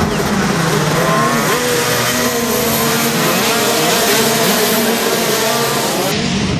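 Several 125 cc two-stroke racing kart engines running together, their pitches rising and falling as the karts brake and accelerate through a corner and pass close by.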